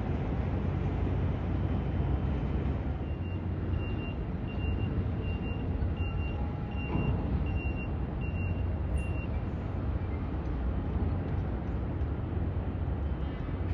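A steady low rumble of harbour ambience. For about six seconds in the middle, a reversing alarm sounds a string of short high beeps, roughly one and a half a second.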